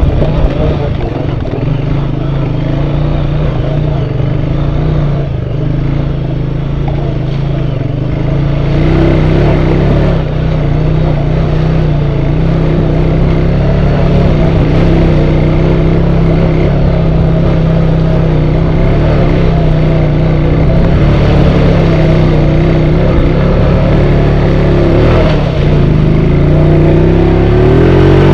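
ATV engine running steadily while the quad is ridden along a trail, its pitch dipping and rising briefly near the end.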